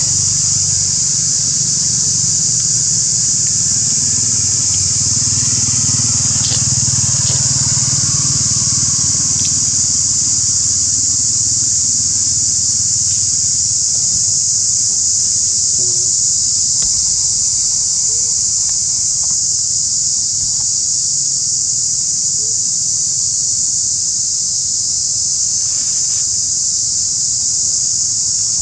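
Steady high-pitched drone of insects. A low rumble underneath fades out after about ten seconds.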